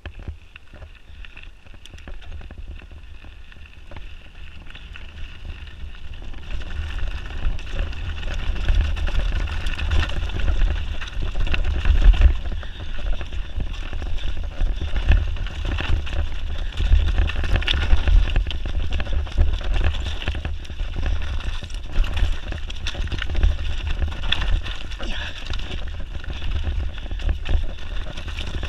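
Mountain bike descending a dry, loose gravel trail: wind buffeting the microphone, tyres crunching over loose stones and the bike rattling, with many sharp clicks. It grows louder over the first several seconds as speed builds, then stays loud.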